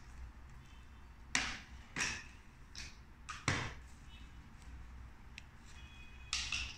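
Hard plastic vacuum cleaner attachments being handled and pulled apart on a tile floor: a run of short clicks and knocks, the loudest about a second and a half, two, and three and a half seconds in, with another brief scrape and clatter near the end.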